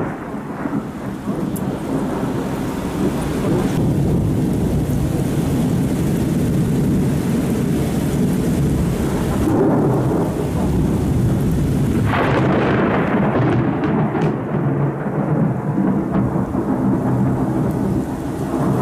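Thunderstorm: continuous rumbling thunder over a steady wash of rain.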